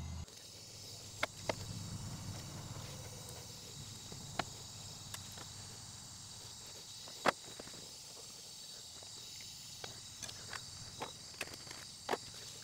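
Sparse light metallic clicks and taps from hand tools working on the open valve gear of a Subaru EN07 cylinder head, refitting valve springs and keepers. The sharpest click comes about seven seconds in and several more cluster near the end, over a steady high-pitched hiss.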